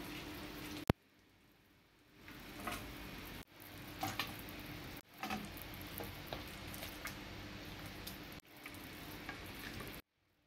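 A slotted spoon clicks and scrapes against a pot and a steel plate as boiled chicken pieces are lifted out of the stock and laid down, over a steady hiss. The sound drops out abruptly several times.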